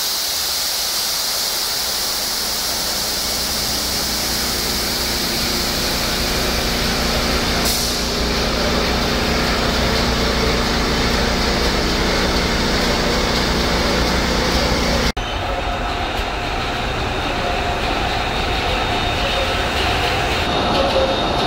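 A container ship's engine room running at sea: the large marine diesel main engine and its auxiliary machinery make a loud, steady din with a strong hiss over it. About two-thirds of the way through the sound changes abruptly: the hiss drops back and a lower machinery hum with a few steady tones takes over.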